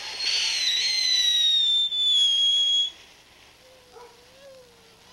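Ground fountain firework spraying sparks with a hiss and a loud shrill whistle that slowly drops in pitch for nearly three seconds, then cuts off suddenly.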